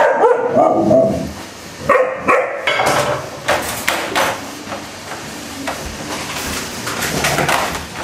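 Alaskan Malamute puppy shouting: drawn-out calls that waver up and down in pitch, several in the first three seconds. Then a run of sharp clicks and knocks.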